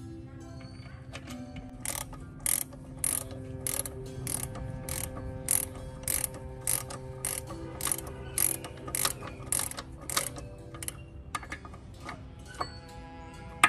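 Socket ratchet wrench clicking in short strokes, about two a second, as a bolt inside a small farm machine's gearbox housing is tightened during reassembly; the strokes pause about ten seconds in, and a few more come near the end.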